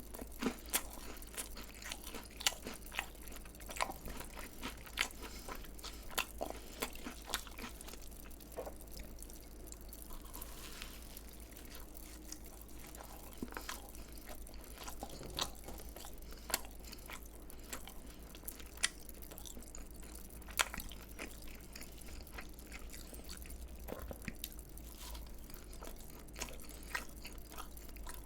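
Close-miked chewing of crispy fried food, with irregular sharp crunches as the coating breaks between bites, a little sparser near the middle.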